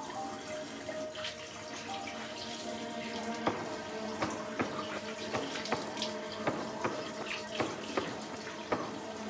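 Water running from a bathroom tap into a sink, with sharp splashes about two to three times a second from about three seconds in as water is splashed over the face.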